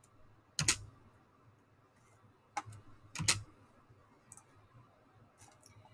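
A handful of sharp, separate computer clicks, unevenly spaced, the loudest about half a second in and about three seconds in.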